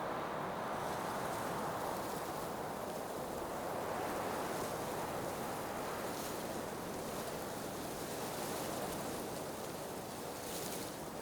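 Blizzard wind blowing steadily, a dense rushing noise that swells and eases, with a brief brighter hiss of a gust near the end.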